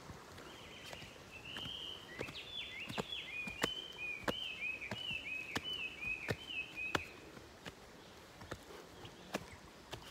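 Footsteps climbing earth-and-timber trail steps, sharp scuffs and taps about every half second. A bird sings a rapid run of short, down-slurred whistled notes over them, stopping about seven seconds in.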